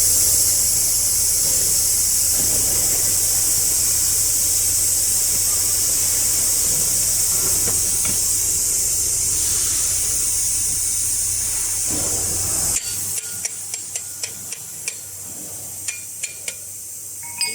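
Compressed air hissing steadily over a low electric motor hum, cutting off abruptly about thirteen seconds in; then a scatter of light, sharp clicks and taps.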